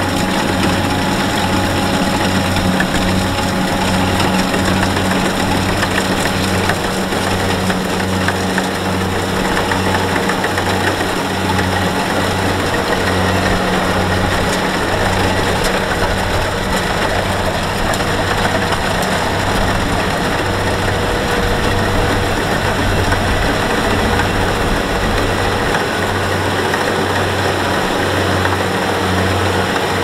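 Kubota rice combine harvester's diesel engine running steadily, with a regular low throb, as the tracked machine crawls through a soft, muddy paddy field.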